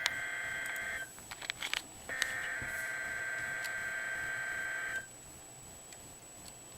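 NOAA Weather Radio SAME alert header, the screechy digital data tones that open an Emergency Alert System message, here encoding a Severe Thunderstorm Watch. One data burst ends about a second in, and after a one-second gap with a few faint clicks a second burst runs about three seconds. Low radio static follows.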